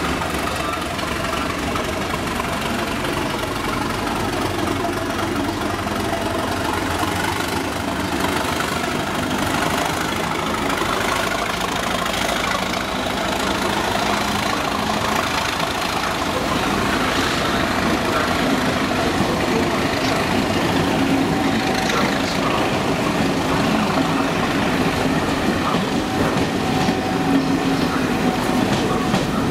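Class 37 diesel locomotive 37421 pulling away at the head of a rake of coaches, its English Electric V12 engine running under power, with the coaches' wheels rolling over the rails. The sound grows slightly louder toward the end as the coaches pass close by.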